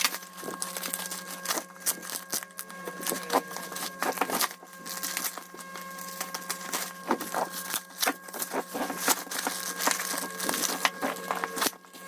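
Packaging being handled and opened: irregular crackling, rustling and sharp clicks, over a steady low hum.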